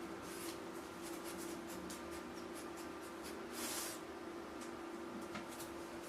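A fox pawing at a toilet's flush button: a run of light clicks and scrapes, then a brief hiss about two-thirds of the way in, over a steady low hum. No flush is heard.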